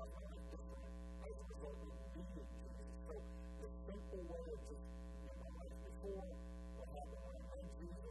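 Steady electrical mains hum on the audio track, a low buzzing drone with many even overtones, with a faint talking voice beneath it.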